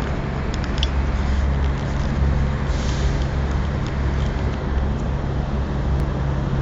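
A steady low engine hum, constant in pitch, over a continuous rushing noise.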